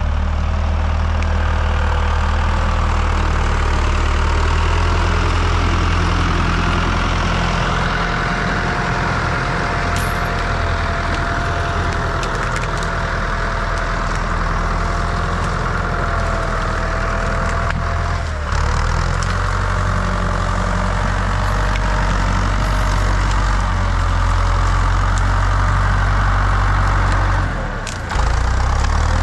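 Enter 654 tractor's diesel engine running steadily under load, with a thin whine above the engine note. The sound dips briefly about two-thirds of the way through and again near the end.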